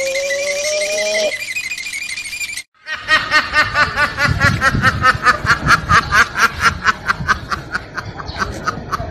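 Ducks quacking loudly in rapid, overlapping repeated calls, starting suddenly about three seconds in. Before that comes a stretch of fast high chirping that cuts off abruptly.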